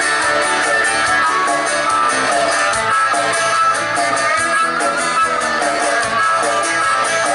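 Live rock band playing loudly through a PA, with electric guitars, acoustic guitar and bass, and a melody line bending above them.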